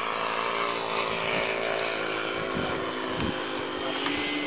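Engine of a large RC P-47 Thunderbolt model aircraft running steadily at low power as it sits and taxis on grass, with the throttle starting to open near the end.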